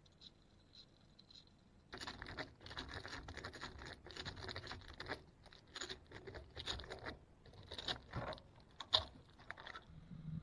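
Hand tool cutting pallet wood: a few faint clicks, then from about two seconds in a run of short, quick scraping strokes, several a second.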